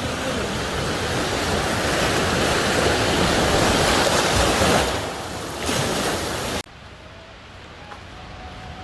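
Sea waves and wind buffeting the microphone, a loud steady rush. About six and a half seconds in it cuts off suddenly to a much quieter background.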